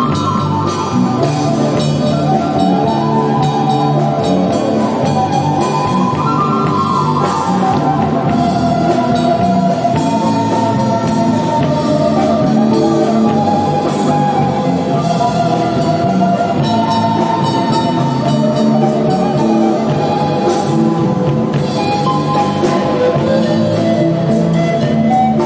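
Andean folk band playing a pasillo live, guitar accompaniment under a sustained melody line.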